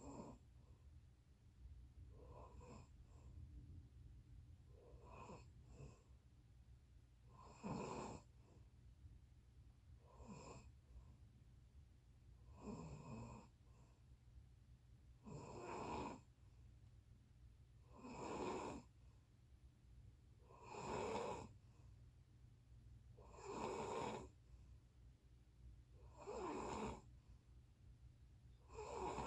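A person snoring, one snore about every two and a half seconds; the first few are short and faint, and from about eight seconds in each is longer and louder. A low steady hum runs underneath.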